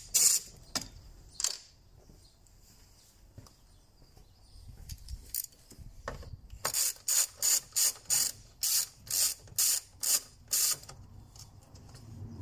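Ratchet wrench with a T45 Torx bit clicking as it backs out pre-loosened bolts at the strut tower. A few single clicks in the first second and a half, then a steady run of about ten ratcheting strokes, roughly two a second, in the second half.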